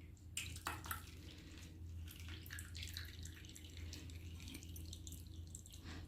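Herbal decoction dripping and trickling through a strainer into a cup: a faint scatter of small drips and ticks, a few slightly louder ones in the first second.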